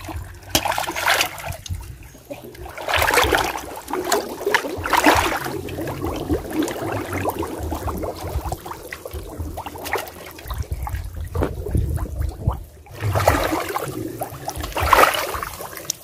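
Shallow muddy water sloshing and splashing irregularly as a person wades through it and works in it by hand, with some trickling.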